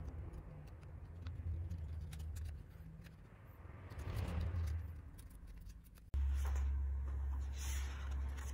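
Paper rustling and crackling as a stack of folded paper pieces is handled and opened out by hand, over a steady low hum. About six seconds in, the sound changes abruptly: the hum becomes much louder, with paper handling continuing over it.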